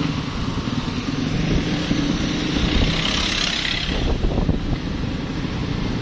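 Vehicle engine running steadily while travelling along a dirt road, with wind rushing over the microphone.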